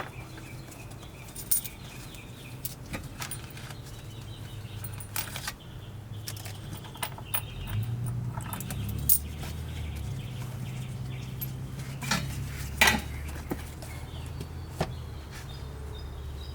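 Vacuum cleaner running with a steady low hum that shifts in pitch a few times as the nozzle works the car's carpet, while grit and small debris click and clink up the nozzle, the sharpest clicks about twelve and thirteen seconds in.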